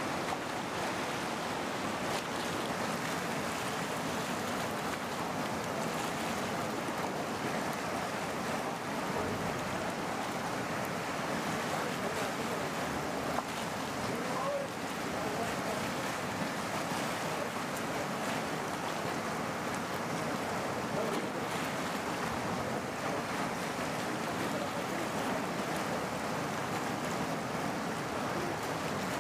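Ganga River in flood: fast, swollen floodwater rushing past in a steady, unbroken wash of noise.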